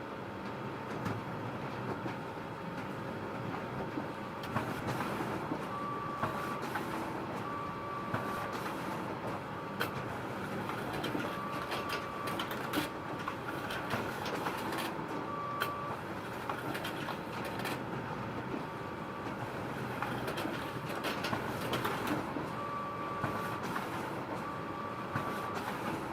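Photocopier running: a steady mechanical whir with frequent sharp clicks and a short high beep-like tone every few seconds.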